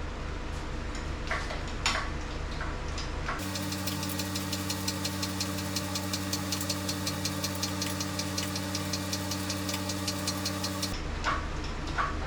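A motor-driven machine runs steadily for about seven seconds with a rapid, even ticking, starting and stopping abruptly a few seconds in and near the end. A low steady hum is under the rest.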